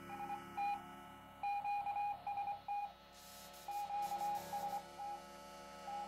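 Morse code sent by hand on a straight key, heard as a steady mid-pitched sidetone beeping on and off in uneven dots and dashes.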